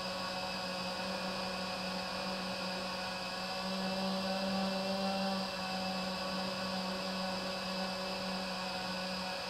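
FPV drone's electric motors and propellers running at a steady cruise: a constant whirring hum with a high whine above it, a little louder about four to five seconds in.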